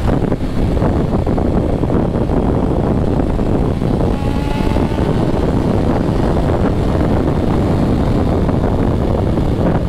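BMW S1000RR inline-four sportbike running at highway speed under steady throttle, its engine drone mixed with wind rush on the rider's microphone.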